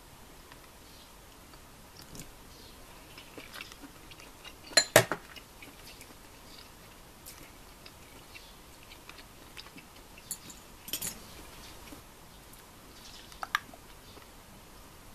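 Tableware sounds while eating: scattered clicks and clinks of a metal fork against dishes, the loudest a sharp double knock about five seconds in, with a few smaller ones later, and quiet chewing in between.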